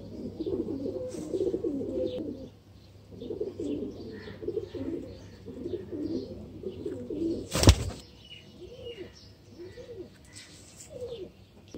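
Domestic pigeons cooing over and over in low, wavering calls, with a single sharp knock about two-thirds of the way through.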